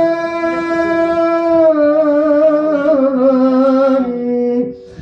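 A man singing a Turkish folk song holds one long, steady note. Just under two seconds in it breaks into a wavering, ornamented run, which ends near the end.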